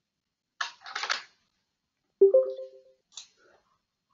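Computer mouse and keyboard clicks: a few clicks about a second in, then a sharper click about two seconds in with a brief low ring, and a light tick near the end.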